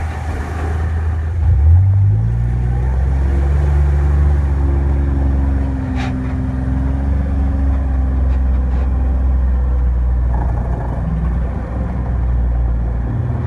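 Off-road vehicle's engine running as it is driven along a dirt track, heard from on board. The revs rise briefly about two seconds in, then hold steady.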